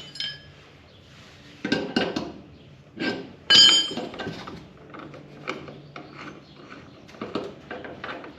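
Metal door-latch hardware being worked by hand while a turnbuckle is adjusted: a few loud, ringing metallic clanks, then a run of lighter clicks and knocks.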